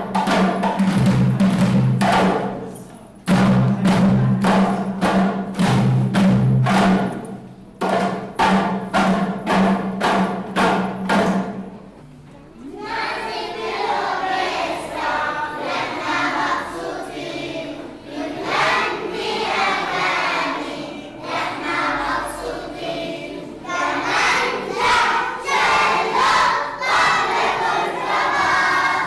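Music: drumming over a held low note, giving way a little before halfway to a group of voices singing together, a children's choir.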